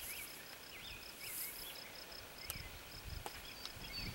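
Outdoor field ambience: an insect trilling steadily in a fast, even pulse, with repeated short chirping calls from a bird. A couple of faint clicks fall about two and a half and three and a quarter seconds in.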